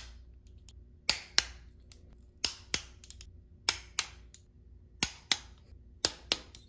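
Click-type torque wrench clicking as it reaches its 110 inch-pound setting on engine cover screws: sharp clicks in pairs, about five pairs a little over a second apart.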